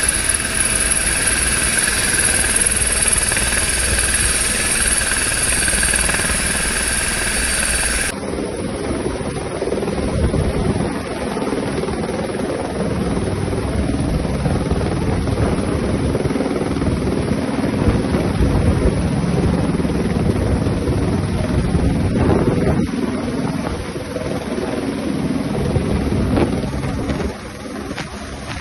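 Navy helicopter in flight. For the first several seconds it is heard from inside the cabin: steady high turbine whine over engine and rotor noise. After about eight seconds the sound changes to the helicopter heard from the ground as it hovers, a noisy rotor sound with wind on the microphone.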